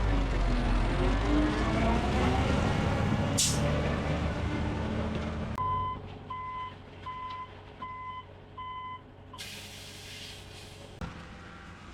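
Concrete mixer truck's engine running, its pitch rising and falling, with a short hiss of air about three and a half seconds in. After about five and a half seconds a reversing alarm beeps five times, evenly spaced.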